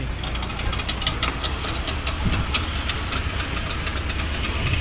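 A boat engine idling with a steady low rumble, with scattered sharp clicks on top during the first few seconds.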